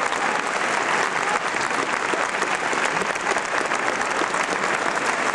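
A large audience applauding steadily: a dense, even wash of many hands clapping.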